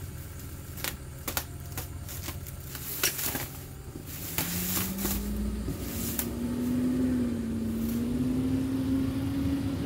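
Plastic stretch wrap crinkling and tearing as it is ripped off a boxed subwoofer, in sharp crackles. From about four seconds in, a box truck's engine pulls away, its pitch rising and then holding.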